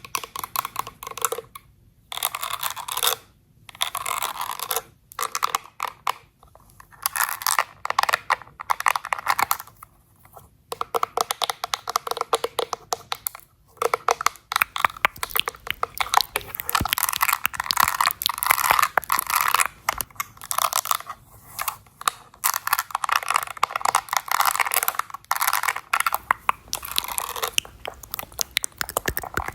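Close-miked ASMR makeup sounds: dense crackling, scratching and tapping from makeup products and tools handled against the microphone, in runs of a few seconds with short breaks.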